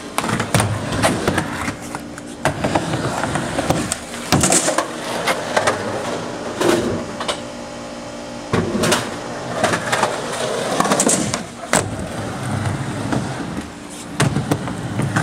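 Skateboard wheels rolling on concrete and a ramp, broken by a dozen or so sharp clacks of the tail popping and the board slapping or clattering down as ollies are tried.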